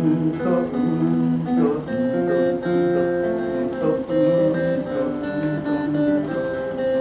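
Acoustic guitar played solo, with no singing: melody notes picked over a steady bass line.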